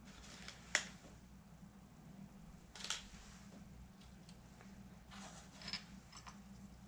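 A few faint, scattered plastic clicks and small rattles: key springs and keycaps being handled and fitted into an Amstrad CPC464's plastic keyboard frame. A low steady hum runs underneath.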